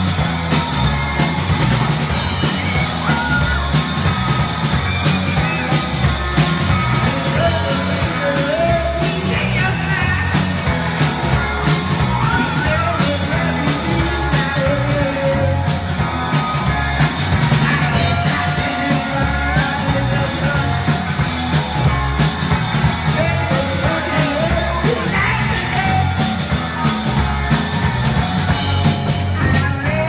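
Live rock band playing: two electric guitars and a drum kit driving hard and steadily, with a singer's voice over the top.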